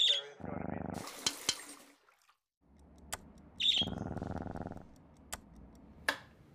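A budgie's short high cheep followed by about a second of a cat purring, the cheep-purr pair heard three times. A brief hiss of noise comes after the first pair, with a few sharp clicks scattered through.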